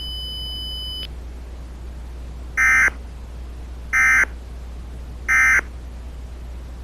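Three short Emergency Alert System end-of-message data bursts, the buzzy digital SAME tones, about a second and a half apart, marking the close of the alert. A steady high tone cuts off about a second in, over a steady low hum.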